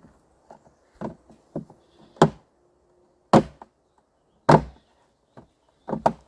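Knocks and taps of a plastic 45-degree elbow fitting being pushed and worked into a hole cut in the side of a plastic trash can. Three loud knocks about a second apart in the middle, with lighter taps before them and a quick double knock near the end.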